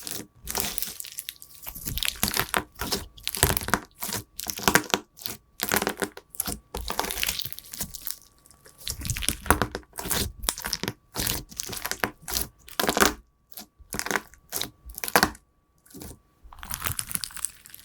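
Slime being squeezed and pressed by hand, making a quick, irregular series of sticky clicks and pops in bursts.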